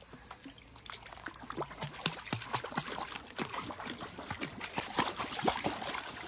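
Pool water splashing as a pug paddles in it. The splashes start soft and build over the first couple of seconds into a quick, irregular run.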